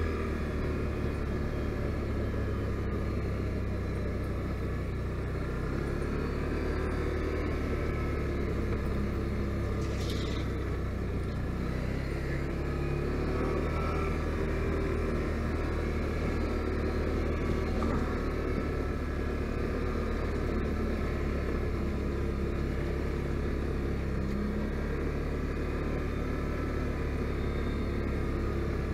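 Can-Am Outlander 570 ATV's V-twin engine running steadily as the quad is ridden along, a low even drone with only slight changes in pitch.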